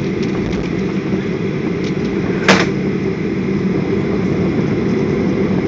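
Cabin noise of a jet airliner taxiing after landing: a steady low engine hum and rumble. A single short, sharp noise cuts through about two and a half seconds in.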